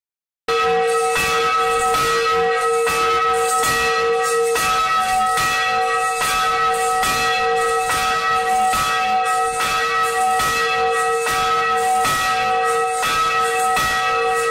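A church bell ringing in a quick, even peal, struck nearly twice a second, its tone ringing on between strikes. It starts about half a second in.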